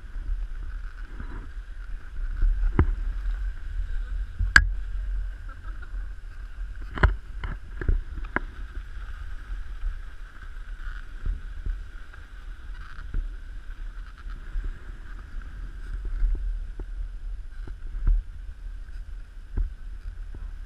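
Dog sled gliding over packed snow: a steady low rumble and hiss from the runners, with scattered sharp knocks as the sled jolts, the loudest about four and seven seconds in.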